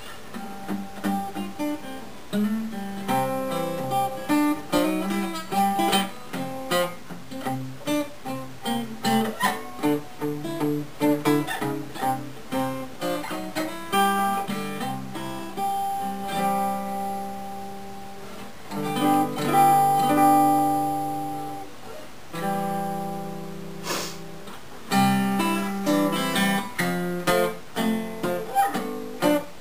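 Gibson L-48 archtop acoustic guitar being played after a completed repair, showing off its sound: casual runs of picked single notes, with a couple of strummed chords left ringing about two-thirds of the way through.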